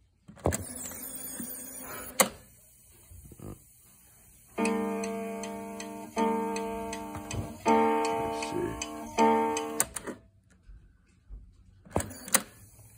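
Toshiba BomBeat 16 cassette boombox: a piano-key click, the tape winding back for about two seconds with a high, wavering whine, and a sharp click as it stops. Then the cassette plays guitar-like music through the boombox's speaker, four sustained chords in a row, before it stops, and two key clicks come near the end.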